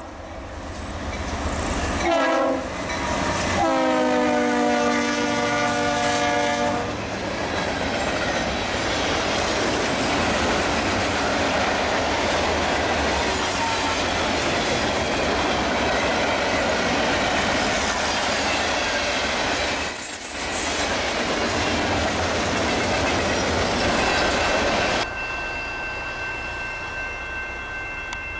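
A Norfolk Southern GE Dash 8 locomotive's Nathan P5 air horn sounds a short blast about two seconds in, then a long blast of about three seconds that drops slightly in pitch as the locomotive passes. A freight train then rolls by with a steady rumble and clickety-clack of wheels over rail joints, cutting off suddenly near the end.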